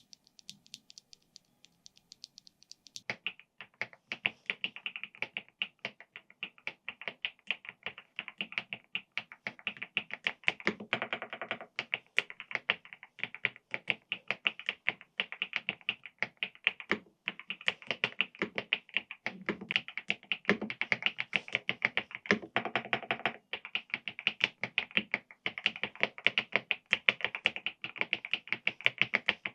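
Fast typing on an EPOMAKER TH99 mechanical keyboard: a rapid, continuous stream of key clicks and key-bottoming taps. The clicks start faint and thin, then turn fuller and louder about three seconds in.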